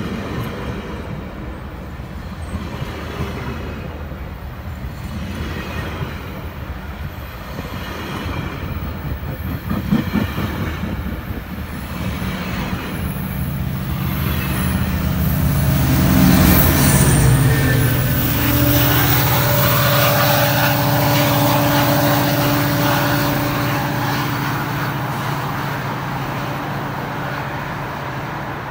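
GO Transit bi-level commuter train pulling away from the platform, its wheels rolling over the rails louder as it picks up speed, with a single sharp clunk about a third of the way in. Just past halfway comes the loudest part, a diesel locomotive's engine drone that drops in pitch as it passes, then fades slowly as the train draws away.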